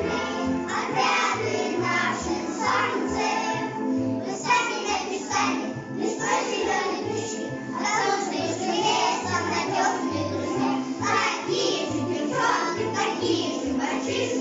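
Children singing together over a musical accompaniment with a steady bass line.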